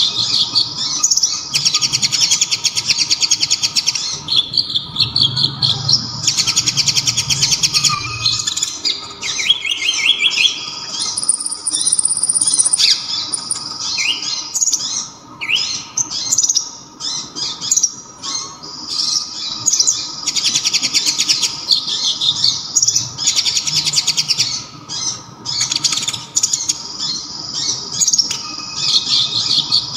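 Kolibri ninja (konin) sunbird singing: high, very fast trills in repeated bursts of a second or two, with short chirps and quick rising notes in between. A faint steady hum runs underneath.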